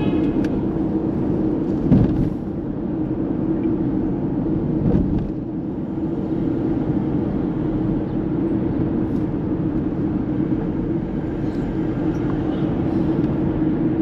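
Steady engine and tyre hum of a car driving on a city road, heard from inside the cabin, with a brief thump about two seconds in.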